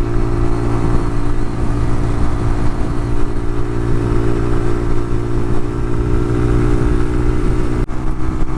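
Suzuki VanVan RV125's single-cylinder four-stroke engine running at a steady cruising speed, with wind and road rush over it and a brief break near the end.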